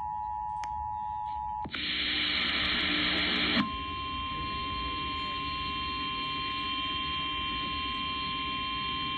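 Emergency Alert System tones: the two-tone attention signal ends about a second and a half in, and a loud burst of hiss follows for about two seconds. Then the single steady 1050 Hz NOAA Weather Radio warning alarm tone sounds, announcing a severe thunderstorm warning.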